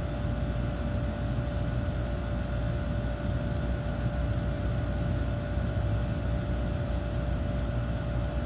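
Steady low outdoor rumble with a constant faint hum, dotted with short high chirps every half second or so.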